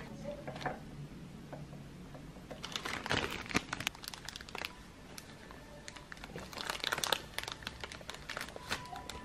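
Packaging being handled and crinkling, in two spells of crackling: one about two and a half seconds in, lasting a couple of seconds, and a shorter one about six and a half seconds in.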